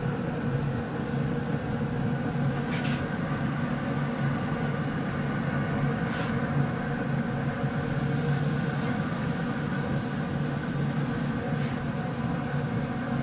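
A steady low mechanical hum with several tones, plus a few faint short clicks about three and six seconds in.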